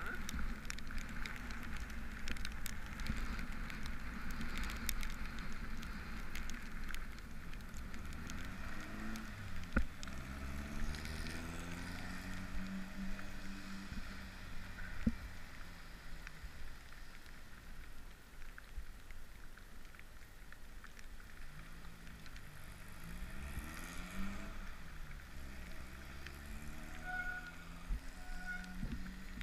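Riding on wet streets in the rain: a steady rumble and hiss of tyres on wet pavement and wind on the microphone. Twice, a low whine rises in pitch and then holds.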